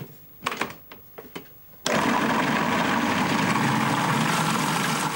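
A few light clicks, then about two seconds in an electric food processor's motor starts suddenly and runs steadily. It is pureeing hot boiled potatoes with butter, the blades bursting the starch granules into a gluey mash.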